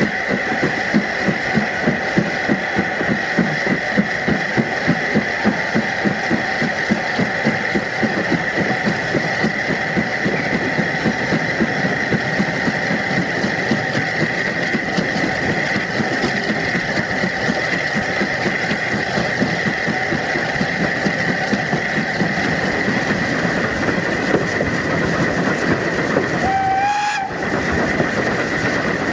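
Maunsell SR Q class 0-6-0 steam locomotive 30541 working a train, its exhaust beats quickening as it gathers speed over a steady hiss. A short whistle sounds near the end.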